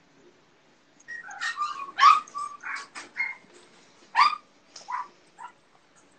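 A dog yipping and whimpering in a quick series of about ten short, sharp calls, the loudest about two and four seconds in.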